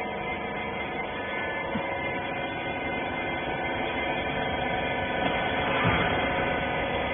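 Hydraulic power unit of a clothes baler running, a steady hum with several fixed tones that slowly grows louder.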